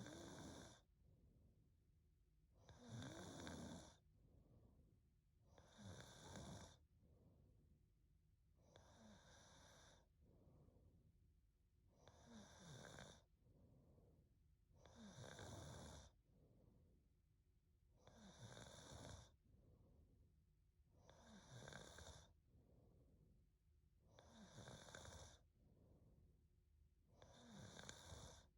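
A young woman snoring faintly in her sleep, in slow even breaths, about one snore every three seconds.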